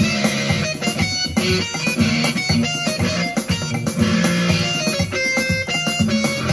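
Yamaha PSR-E473 keyboard playing one of its guitar voices, with two-handed chords and melody on the keys that sound like a plucked guitar.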